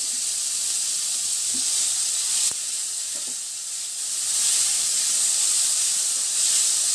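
Chopped onion, ginger and garlic sizzling in hot oil in a stainless-steel kadai as they are stirred with a spatula, frying toward golden brown. A steady high sizzle with one sharp knock about two and a half seconds in; the sizzle grows a little louder about four and a half seconds in.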